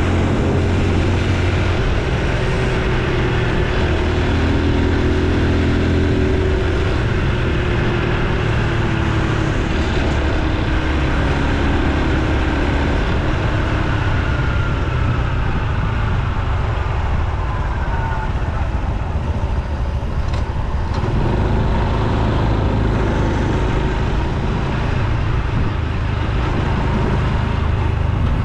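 Honda Super Cub C125's single-cylinder engine running under way, with road and wind noise. The engine pitch rises and falls with speed, dropping slowly in the middle.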